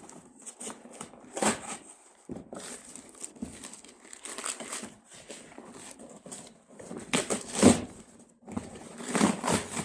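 Packaging crumpling and tearing in irregular bursts as a wrapped door closer is unpacked by hand, loudest near the end.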